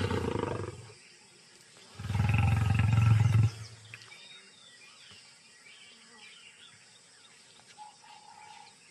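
A lioness growling in anger: two loud growls, one at the very start and a longer one from about two seconds in, lasting about a second and a half.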